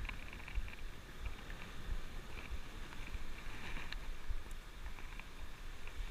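Wind buffeting the microphone in uneven low gusts over the wash of sea waves on a rocky shore, with scattered light clicks of fishing tackle being handled.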